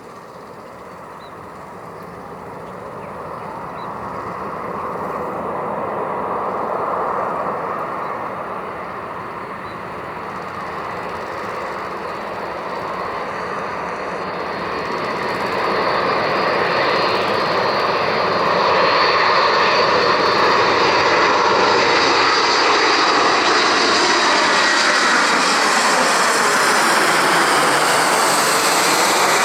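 Boeing 747-400 freighter's four jet engines growing steadily louder as the aircraft approaches, reaching a loud, steady jet noise in the last ten seconds with a sweeping, phasing whoosh near the end.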